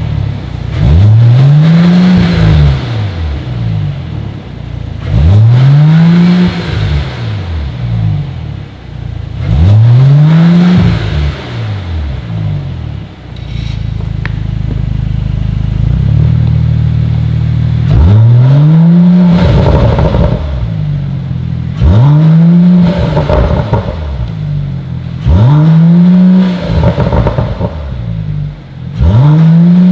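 Mercedes-AMG E53's turbocharged 3.0-litre inline-six, through an Fi Exhaust valvetronic catback, blipped repeatedly, each rev rising and falling, about one every four seconds. The revs pause for a few seconds of steady idle around halfway. The first three revs are with the exhaust valves closed, the later four with the valves open and carrying more mid-pitched sound.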